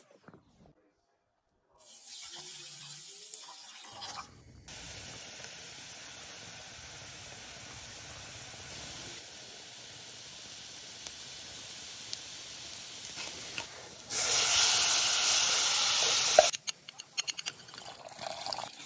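Chopped onion and carrot frying in a stainless steel saucepan: a steady sizzle that grows to a louder hiss for about two seconds before cutting off abruptly, followed by scattered clicks and knocks.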